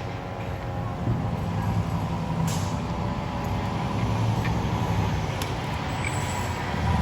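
Diesel engine of a fire department ladder truck running steadily, with a couple of brief sharp sounds along the way; the engine grows louder near the end.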